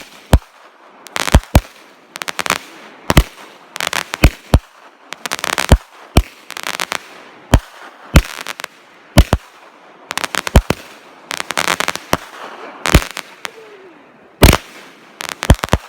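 Fireworks going off: a long run of sharp bangs at irregular spacing, about one to three a second, with crackling between them.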